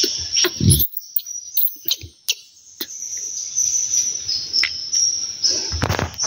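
Steady high-pitched insect chirring from the forest, with close rustling and rubbing from handling, loudest about a second in and near the end.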